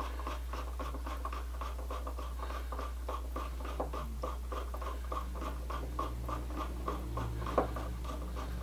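Screwdriver tip scraping painted-over screw slots in rapid short strokes, about four or five a second, clearing old paint so the screws can be turned. A steady low hum runs underneath.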